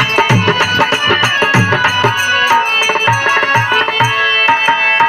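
Instrumental passage of Birha folk music: a tabla plays a steady rhythm with deep bass strokes, over held melodic notes.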